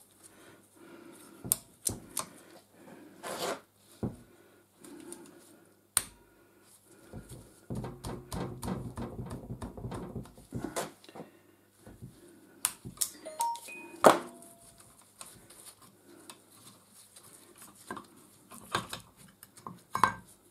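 Metal parts of a W.R. Fox No.3B mitre trimmer being handled and taken apart: scattered clicks and knocks, a run of rattling and scraping about eight seconds in, and a sharp clank with a short metallic ring around fourteen seconds in.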